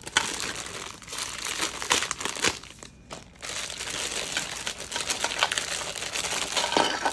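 Clear plastic packaging bag crinkling as it is handled and opened, with a short pause about three seconds in.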